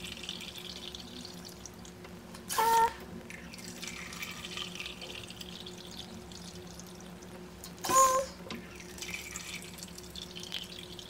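Water running from the push-button spigot of a large plastic water jug into a measuring cup, a steady trickle. Two brief, louder pitched sounds come about five seconds apart.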